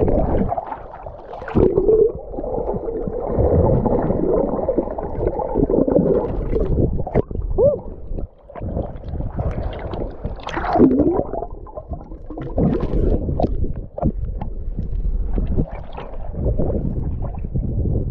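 Sea water splashing and gurgling around a camera held at the surface while someone swims through it, the microphone dipping in and out of the water.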